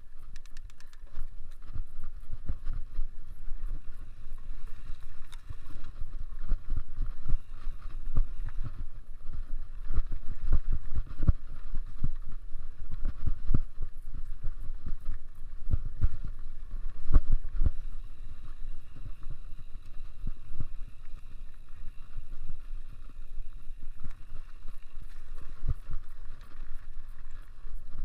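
Mountain bike ridden over a rough cross-country trail: a low wind rumble with frequent short knocks and rattles from the bike over bumps, over a steady hiss.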